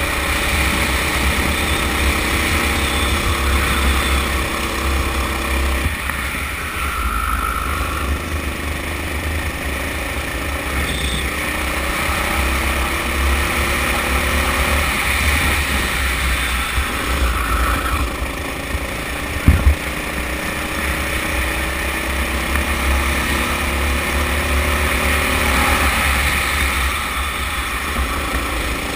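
Kart engine at full throttle, heard onboard. Its pitch climbs slowly along the straights and drops each time the throttle is lifted for a corner, several times over. There is one sharp knock about two-thirds of the way through.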